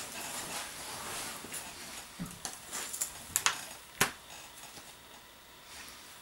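A person sitting down on a bed: rustling of clothes and bedding, then several short clicks and knocks from handling things, the sharpest about four seconds in.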